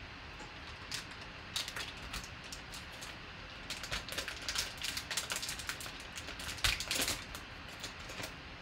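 Gold foil trading-card pack wrapper crinkling and tearing as it is pulled open by hand. It makes a run of sharp crackles, densest in the second half and loudest about seven seconds in.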